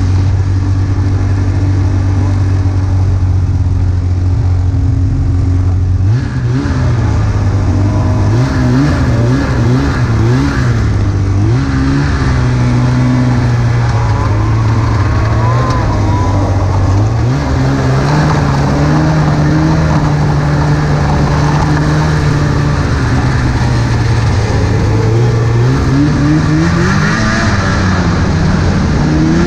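Snowmobile engine running under way, its pitch steady at first, then rising and falling several times as the throttle changes, and climbing to a higher steady pitch later on.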